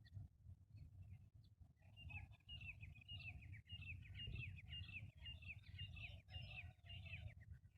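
Faint bird chirping: a quick run of short, falling chirps starting about two seconds in, over a low background rumble.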